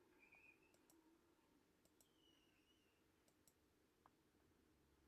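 Near silence: faint room tone with a few very faint clicks.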